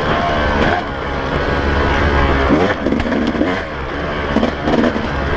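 2017 Yamaha YZ250 two-stroke single-cylinder dirt bike engine under hard riding, its pitch rising and falling again and again as the throttle is worked.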